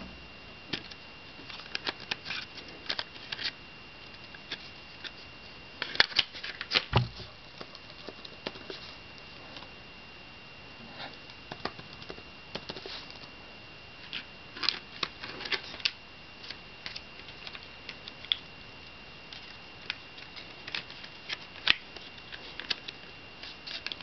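Keys clicking on a black MacBook's keyboard, typed in irregular bursts with pauses between them. There is a louder cluster of clicks with a dull thump about seven seconds in. A faint steady high whine sits underneath.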